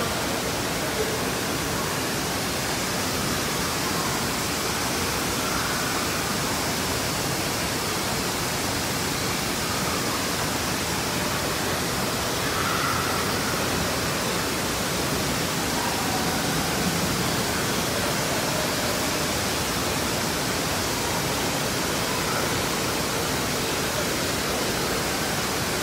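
Steady rush of falling water from water-park play fountains, including a mushroom-shaped fountain pouring a ring of water into a shallow pool.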